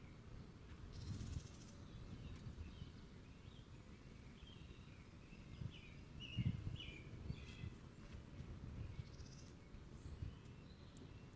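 Faint outdoor ambience: small birds chirping, over a low uneven rumble that swells briefly about six and a half seconds in.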